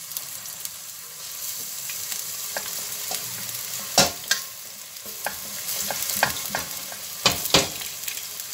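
Chopped onion sizzling as it goes into hot corn oil and ghee in a stainless steel pot, a steady frying hiss. A utensil scrapes and knocks against the pot now and then, sharpest about four seconds in and twice more near the end.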